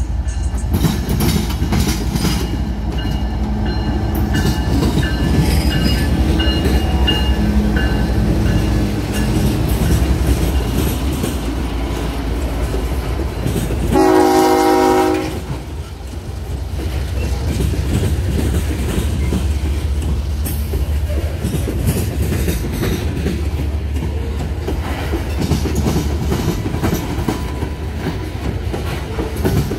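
A loaded coal train rolling slowly past: the diesel locomotive runs by, then the coal hopper cars rumble and clack over the rails. About halfway through there is a short blast of a pitched, horn-like tone.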